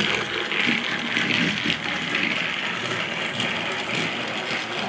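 Battery-powered Thomas & Friends TrackMaster toy engine running along plastic track, its small electric motor whirring steadily.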